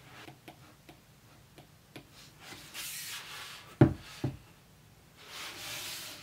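An iPad Air in a folio case being handled on a desk: scattered light clicks and taps, two rubbing hisses as the case is moved, and two sharp knocks about half a second apart, the loudest sounds, roughly two-thirds of the way in.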